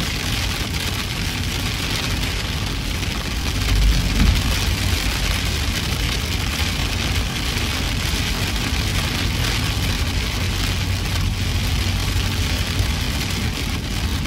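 Heavy storm rain and wind driving against a moving car, with steady tyre and road noise. A deeper rumble swells briefly about four seconds in.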